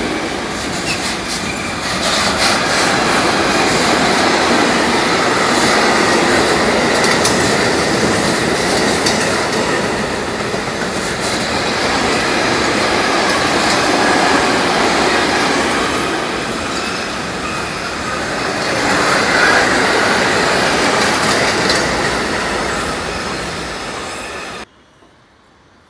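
Long container freight train rolling past close by: steady noise of the wagons' wheels on the rails. It cuts off suddenly near the end.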